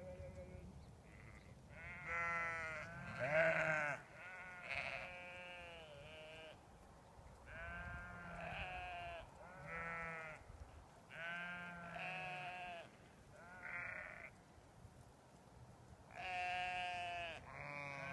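A flock of sheep bleating repeatedly: about a dozen separate calls, some overlapping, each lasting about half a second to a second.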